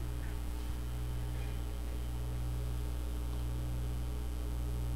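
Steady low electrical hum with a faint hiss, mains hum picked up by the recording setup.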